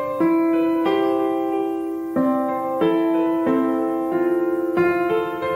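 Background piano music: slow sustained notes and chords, a new note struck every half second or so.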